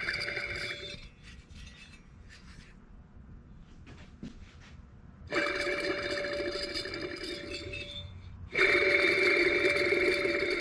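Ford 9N tractor alternator with a bad bearing spinning, giving a steady, high grinding whine. It stops about a second in, then starts again about five seconds in. It breaks off briefly near eight seconds and resumes.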